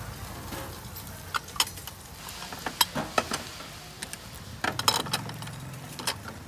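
Cast-iron pancake irons with long metal handles clinking and clanking as they are opened, shifted and set down over a charcoal brazier: a string of sharp metal knocks with a quick flurry about two-thirds of the way in, over a steady low hum.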